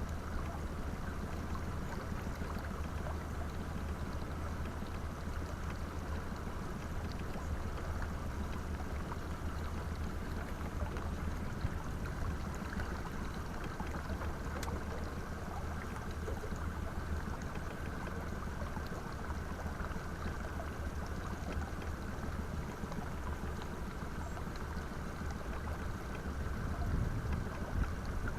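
Steady wind and water noise aboard a pontoon boat in gusty wind, heaviest in the low end, swelling slightly near the end.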